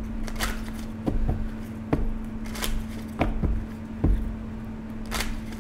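A tarot deck being shuffled by hand: a run of irregular card slaps and rustles, roughly one every half second to a second, over a steady low hum.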